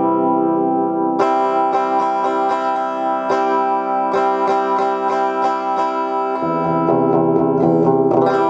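Clean guitar played through a Roland BA-330 portable amplifier: a strummed chord about a second in, then picked notes over ringing chords, with a change of chord near the end.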